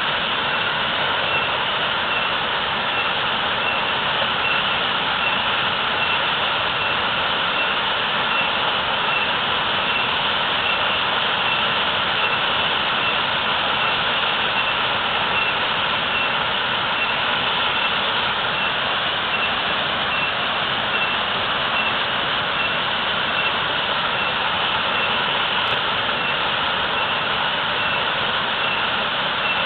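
Natural waterfall pouring heavily: a steady, unbroken rush of falling water.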